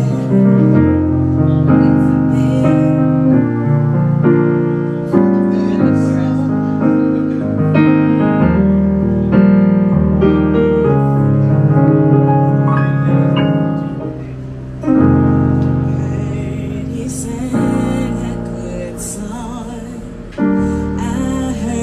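Live music: chords played on a stage keyboard with a piano sound, struck and left to decay, with a woman singing into a microphone over them.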